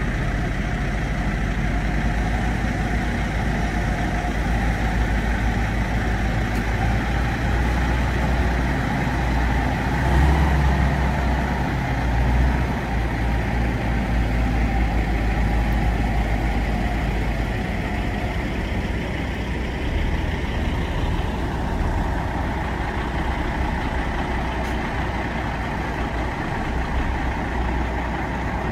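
Heavy diesel engine of a Faun eight-wheeled heavy-haulage tractor unit running steadily as it drives past, swelling louder about ten seconds in.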